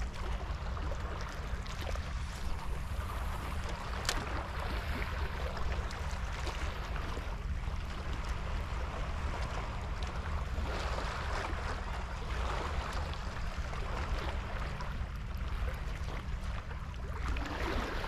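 Steady outdoor sea ambience: a constant low rumble and hum under a hiss of water and wind, with one sharp click about four seconds in.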